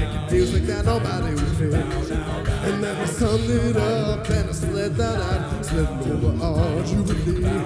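A cappella vocal group performing a song: a lead voice over layered backing vocals, with beatboxed vocal percussion keeping a steady beat.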